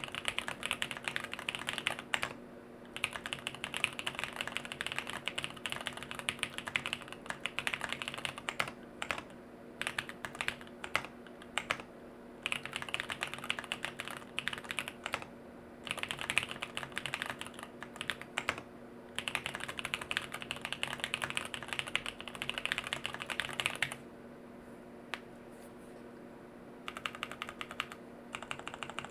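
Fast typing on a jLabs JP-02 custom mechanical keyboard with an FR4 plate, no case foam, Bolsa Supply Corsa switches, Durock V2 stabilizers and KBDFans Neon keycaps: dense runs of keystroke clicks broken by short pauses. Near the end the typing thins to a few scattered keystrokes for a few seconds, then picks up again.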